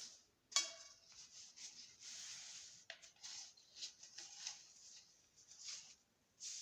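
Scraping and rustling as a wheel rim is covered back up with its packing, after a sharp clack with a short ring about half a second in.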